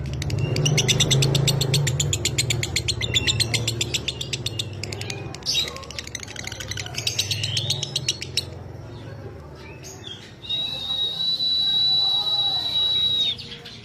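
Lovebird's fast rattling chatter (ngekek), many evenly spaced high notes in quick succession, followed by short gliding calls. Near the end a long steady high whistle is held for about three seconds.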